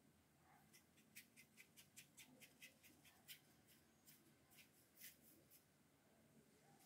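Near silence with faint, quick scratchy ticks, several a second, for a few seconds and then stopping: hands at work on a bamboo-slat canvas during painting.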